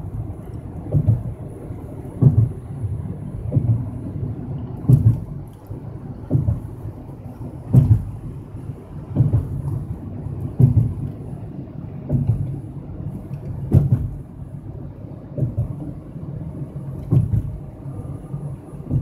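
Car tyres thumping over the bridge deck's joints at an even pace, about one thump every second and a half, over a steady low road rumble heard from inside the car's cabin.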